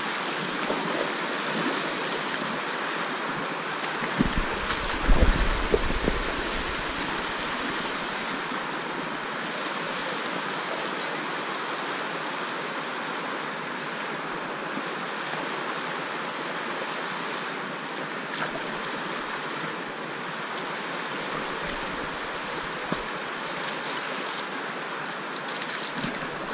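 Shallow river riffle rushing over rocks: a steady rush of water. A few low thumps come in around five seconds in.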